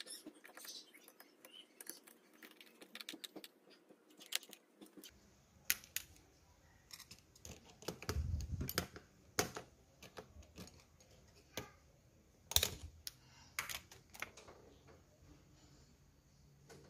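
Hand tools working hose clamps on a car's air-intake hoses: quick small metal clicks and scrapes, then from about five seconds in, sparser, sharper clicks and knocks, with a low thud around eight seconds.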